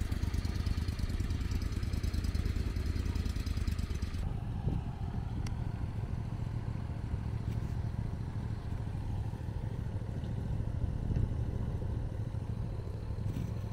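An engine running steadily with a low rumble. Its higher hiss drops away abruptly about four seconds in, while the rumble carries on.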